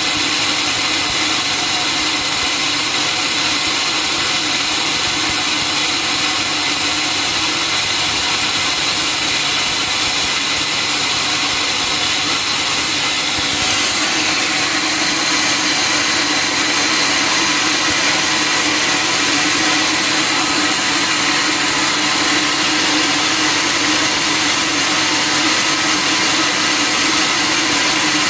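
Sawmill saw running steadily through a log, a continuous loud machine noise with a steady hum underneath; its sound shifts about halfway through.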